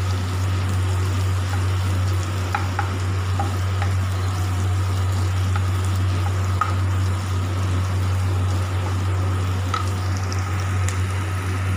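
Sliced onions frying in oil in a nonstick pan, sizzling steadily as a wooden spatula stirs them, with a few light taps of the spatula; the onions are being browned. A steady low hum runs underneath.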